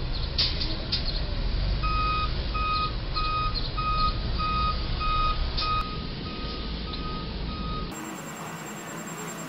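Box truck's backup alarm beeping steadily, a little under two beeps a second, as the truck jammed under the low trestle is put in reverse, over the low rumble of its engine and traffic, with a few sharp clicks. The beeping stops near the end.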